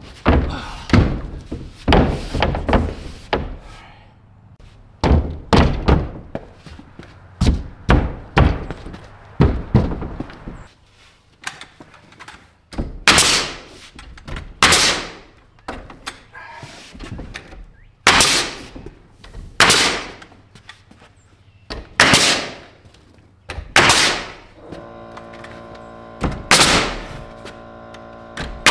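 Heavy knocks and thuds of wood being struck, irregularly, about one every one to two seconds, as a plywood sheet is worked into a wall. Near the end a steady hum of several tones comes in beneath the knocks.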